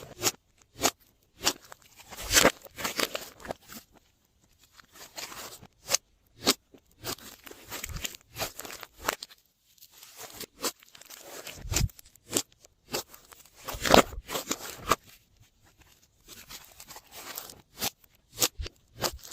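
Glossy slime being squished, pressed and stretched by hand, giving irregular sticky clicks, pops and crunchy crackles, louder in short clusters.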